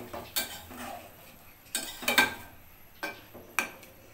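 Metal spatula stirring a watery fish and bean curry in a metal karahi, clinking against the pan about five times with short metallic rings and scraping between.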